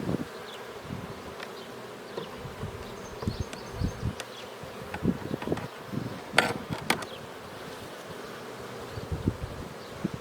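Honeybees buzzing around an open hive, with scattered low knocks and clicks as hive frames are handled. The loudest sounds are two sharp clicks about six and a half seconds in.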